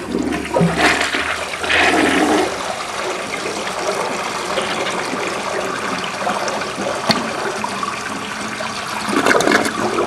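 1963 Briggs toilet flushing with a load of toilet paper in the bowl: water rushes and swirls down the drain and carries the paper away. The rush is loudest in the first two seconds or so, then settles into a steady wash that swells again near the end.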